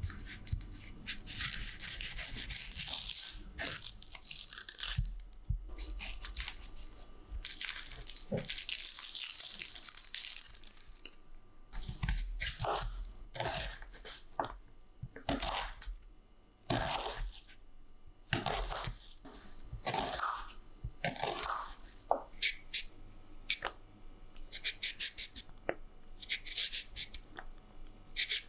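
Papery onion skin crackling and tearing as an onion is peeled by hand, then a kitchen knife slicing through the onion and tapping the wooden cutting board in separate strokes.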